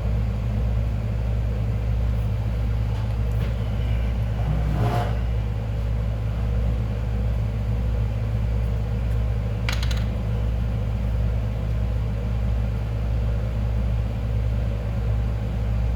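A steady low hum, with a short sound about five seconds in and a sharp rattle of clicks near ten seconds.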